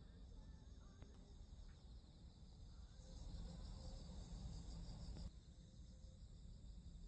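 Faint chorus of chirping insects, with a low rumble underneath. It grows a little louder for a couple of seconds and drops back abruptly about five seconds in.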